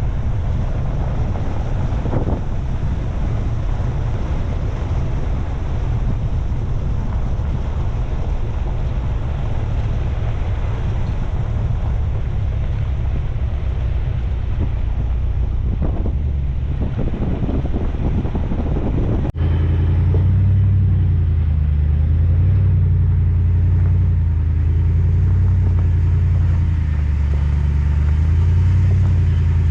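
Ram 4x4 pickup truck driving along a rough dirt trail: steady engine and tyre rumble. About two-thirds through there is a sudden cut to a louder, steadier low engine drone.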